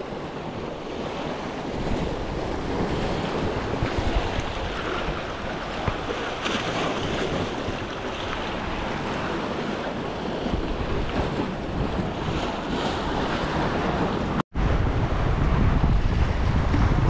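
Sea waves washing on a rocky shore, with wind rumbling on the microphone. A short gap in the sound comes a few seconds before the end, and after it the wind rumble is stronger.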